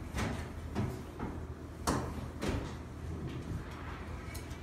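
Glass booth door knocking and rattling in its frame about four times, over a low steady hum.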